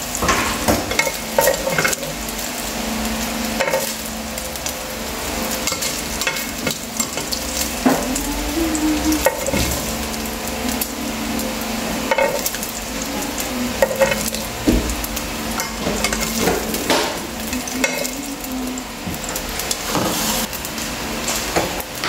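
Chicken pieces sizzling in butter in a stainless steel pan, with metal tongs clicking and scraping against the pan as the lightly browned pieces are lifted out.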